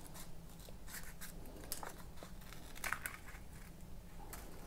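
Scissors snipping through folded white paper: a run of short, irregular cuts with light paper rustling.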